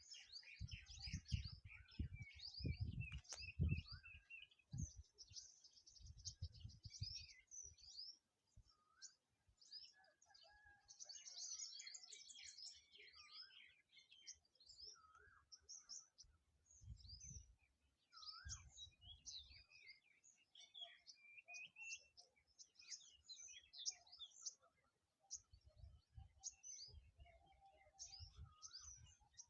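Many small birds chirping and twittering, faint, with overlapping high, quick calls and short trills. Low rumbles come and go, mostly in the first few seconds and again near the end.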